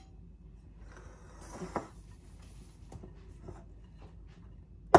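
Quiet handling noises on a kitchen counter: a soft rustle with a click about a second and a half in, a few light taps, and one sharp knock at the very end.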